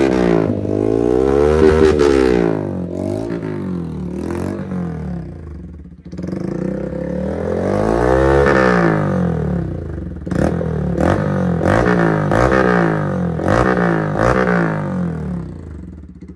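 Bajaj Pulsar N160's single-cylinder engine revved repeatedly through four free-flowing aftermarket Akrapovic double-barrel silencers, two on each side, with their dB killers removed. The pitch rises and falls with each throttle blip, drops almost to idle about six seconds in, then climbs again into a run of quick blips with sharp cracks between them, and eases near the end.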